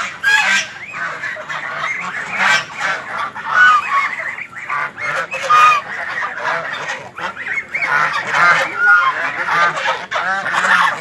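A flock of domestic ducks calling nonstop, many loud quacks and honking calls overlapping each other.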